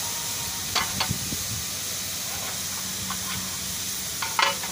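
Metal clanks and clinks from a hand-lever ring-bending die and its steel strip as the handle is worked: a few short knocks about a second in and a louder cluster near the end, over a steady hiss.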